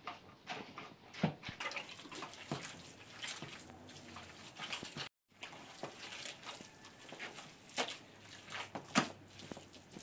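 Wet mud being worked in a basin, scooped first with a tool and then by hand: irregular scrapes, knocks and wet squelches.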